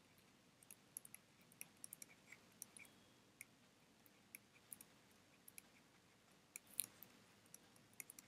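Near silence with faint, irregular ticks of handwriting on a touchscreen, a dozen or so small clicks as words are written out.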